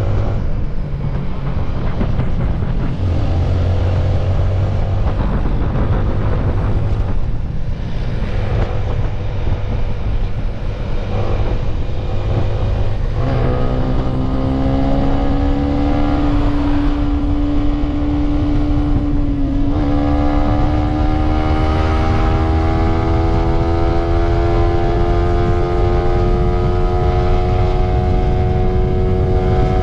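Yamaha underbone motorcycle's single-cylinder four-stroke engine pulling hard at speed, with heavy wind rushing over the microphone. The engine note climbs steadily, drops sharply at a gear change about two-thirds through, then climbs again.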